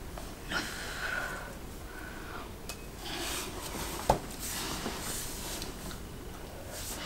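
A woman breathing in and out through a cigarette in a small room, a few soft breathy draws and exhales of smoke. One sharp click comes about four seconds in.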